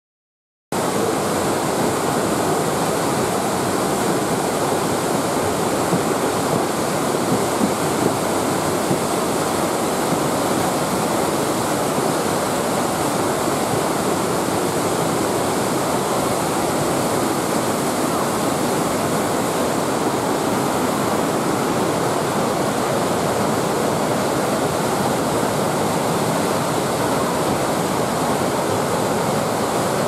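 Waterfall plunging down a rock face into a mountain river: a loud, steady rush of falling water that starts suddenly about a second in and holds unchanged.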